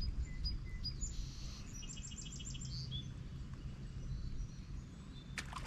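Outdoor ambience with a low rumble and a bird singing a quick run of about seven short, high notes about two seconds in. A couple of sharp clicks come near the end.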